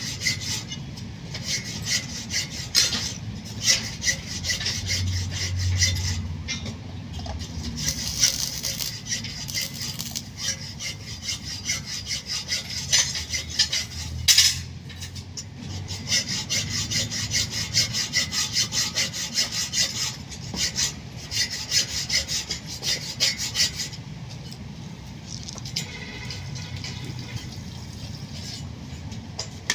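Repeated rasping strokes of a hand tool worked against a hard surface, going in long runs with short breaks.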